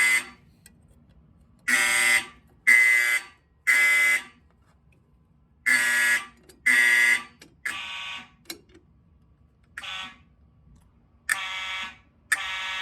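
Cerberus-Faraday fire alarm horn sounding the Code 3 temporal pattern: three half-second buzzing blasts, a pause, then two more. Toward the end the blasts come weaker and less even.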